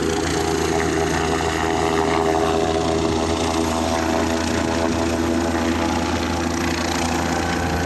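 Air ambulance helicopter flying low overhead, its rotor and turbine engines making a loud, steady drone.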